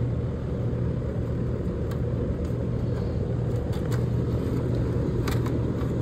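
Air-conditioning condensing unit running: a steady low hum from the compressor with fan rumble, and a few faint clicks over it.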